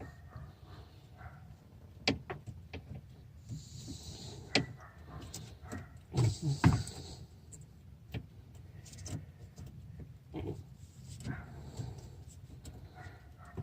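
Needle-nose pliers working at a leaking car radiator: scattered metal clicks and knocks, the loudest cluster about halfway through, with a couple of short hissy rustles, over a steady low hum.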